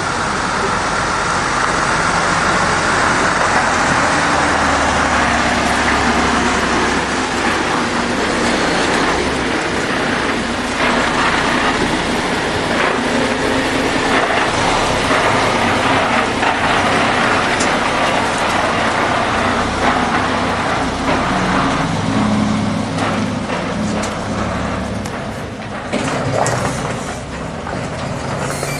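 Remote-control MAN TGS model dump truck driving: its motor and running gear make a steady vehicle noise.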